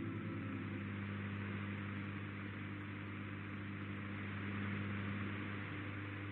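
Shortwave AM receiver hiss on the channel after the broadcast's closing music has ended, an even static with a steady low hum underneath; one of the hum's tones drops out near the end.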